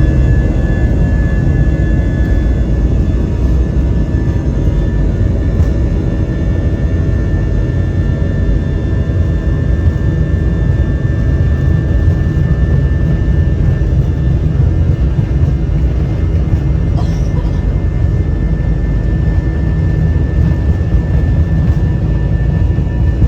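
Airliner cabin noise in flight: a loud, steady low rumble of jet engines and airflow, with a thin steady high whine above it.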